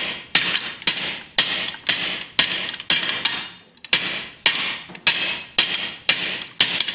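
Hand hammer striking the top die of a guillotine pipe swage, about two ringing blows a second with a brief pause just past halfway. The blows are necking down a hot 1-inch steel pipe held in the swage.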